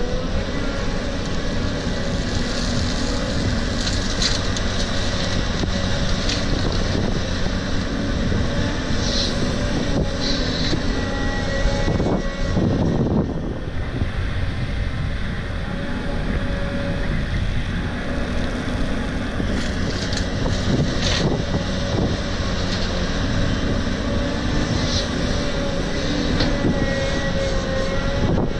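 Caterpillar 320 excavator's diesel engine running steadily under load as it digs and loads laterite, with bursts of clattering soil and gravel from the bucket several times.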